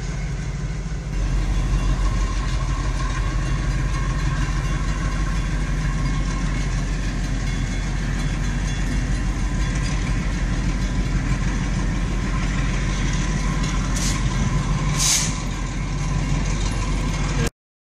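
Richmond Pacific Railroad diesel locomotive running steadily with a low engine rumble, which grows louder about a second in, and a faint steady whine over it. Two short hisses of air come about 14 and 15 seconds in, and the sound cuts off suddenly near the end.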